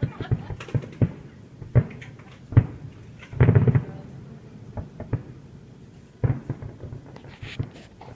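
Fireworks going off: a string of sharp bangs about a second apart, with a denser burst of bangs about three and a half seconds in.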